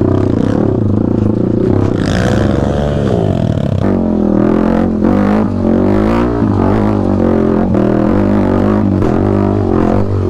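Yamaha WR155R's single-cylinder 155 cc engine running under load on a rough trail. The revs dip and climb again about two to four seconds in, then hold fairly steady with small rises and falls.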